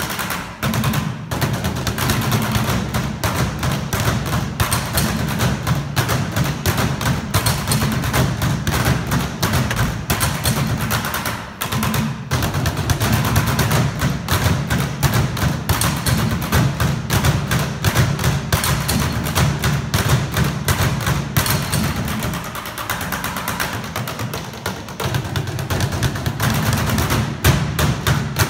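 A drum ensemble beating fast, dense rhythms with drumsticks on Victorinox Spectra hard-shell suitcases, a stream of thuds and sharp clicks. The playing breaks off briefly near the middle and turns quieter for a few seconds later on before building again.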